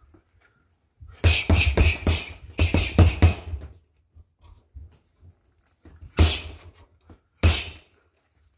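Leather boxing gloves punching a hanging heavy bag: a fast flurry of about eight punches in two quick combinations a second or so in, then two single punches a little over a second apart near the end.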